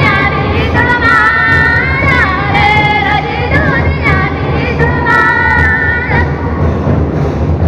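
Karma folk song: a group of high voices singing together over barrel drums beating steadily underneath. The singing breaks off about six seconds in, leaving the drums.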